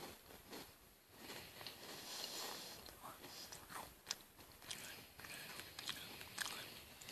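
A child chewing a bite-size chocolate-cream-filled biscuit close to the microphone: faint, soft, irregular chewing with a few sharp little clicks in the second half.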